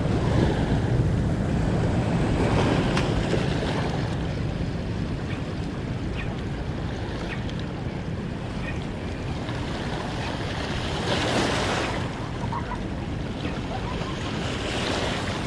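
Steady rush of water from the dam's open floodgates, with wind on the microphone swelling briefly about two-thirds of the way in. A boat engine hums low under it for the first few seconds, then fades.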